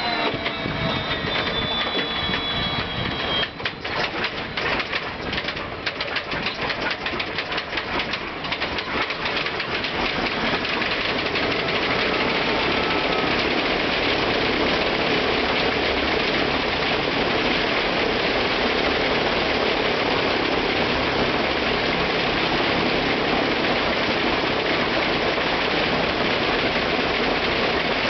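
Ilyushin Il-14T's ASh-82T 14-cylinder radial engine being started. A falling whine in the first few seconds gives way to ragged, uneven firing as the engine catches, and it settles into steady running about ten seconds in.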